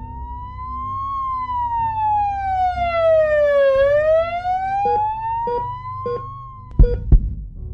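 A siren wailing, its pitch sliding slowly down and then back up. Near the end come three soft ticks and then two loud thumps in quick succession.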